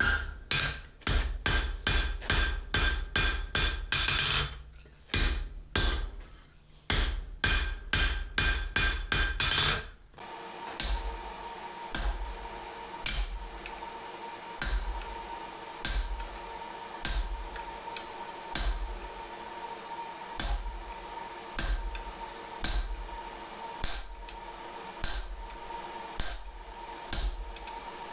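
Blacksmith's hand hammer striking hot flat-bar steel on the anvil in fast, ringing blows, several a second. About ten seconds in, the loud blows stop and a steady hum continues under quieter knocks about one a second.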